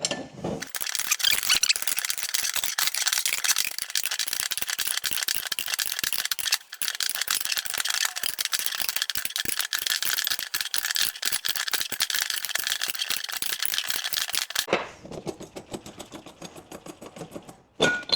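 24 mm spanners working the nut on a bush press kit's threaded rod, pulling a suspension bush into its bore: rapid, steady clicking that stops about fourteen and a half seconds in, followed by a few scattered clicks.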